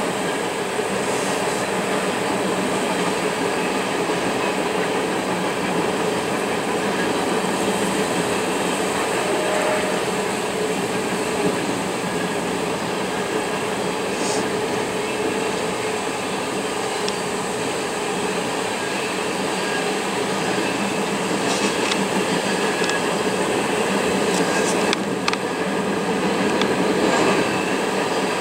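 Freight train of open-top hopper cars rolling steadily past a grade crossing, a continuous rumble and clatter of wheels on rail, with a few short sharp clicks in the second half.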